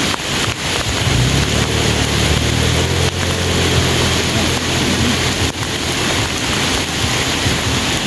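Heavy rain pouring onto the lake surface, a steady loud hiss. From about one second in, a low droning engine hum sits underneath for a few seconds, then fades.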